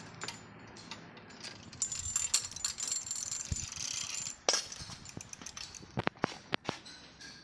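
Loose bicycle-type roller chain of an electric tricycle rattling and clinking as it is handled and fed onto the rear sprocket cluster. A denser jangle runs through the middle, and a few sharp metallic clicks come near the end.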